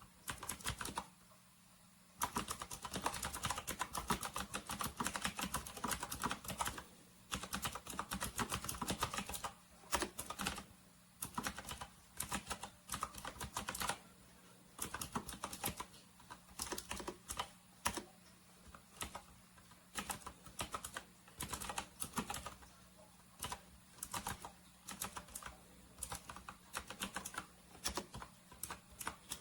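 Fast typing on a Camiysn retro typewriter-style mechanical keyboard: dense runs of rapid key clicks, broken by short pauses.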